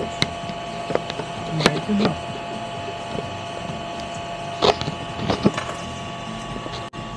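Desktop 3D printer running: a steady electrical hum of several held tones from its extruder cooling fan and motors, with a few scattered clicks and knocks.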